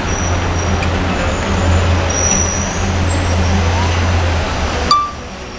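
Steady low rumble and hiss of outdoor background noise, loud enough to cover the guitar. About five seconds in there is a sharp click, and the rumble cuts off.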